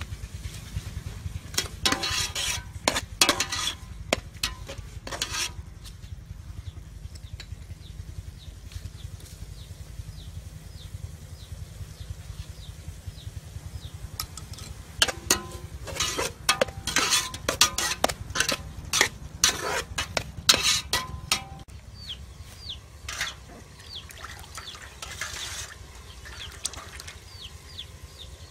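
Metal ladle stirring and scraping in an aluminium pot of simmering ground pork and broth, clinking against the pot's sides in two bursts of quick knocks, over a low steady rumble that stops about three quarters of the way through.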